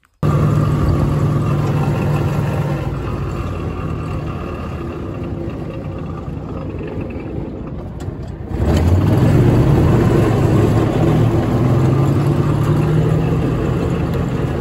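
John Deere Gator utility vehicle driving along a gravel road, its engine running steadily under a rushing noise from the ride. The sound jumps abruptly louder a little past halfway and stays that way.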